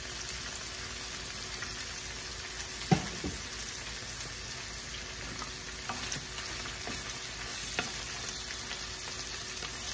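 Whole shrimp sizzling in a frying pan, a steady hiss, with a sharp knock about three seconds in and a few lighter clicks. Near the end a wooden spatula stirs and turns the shrimp in the pan.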